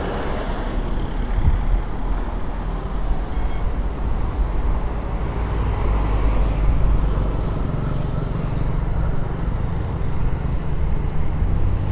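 Steady road traffic noise from cars driving around a roundabout: a low rumble that swells a little around the middle.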